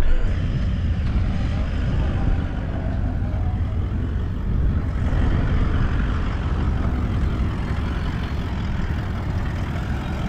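Four-wheel-drive vehicle driving along, a steady low rumble of engine and tyres.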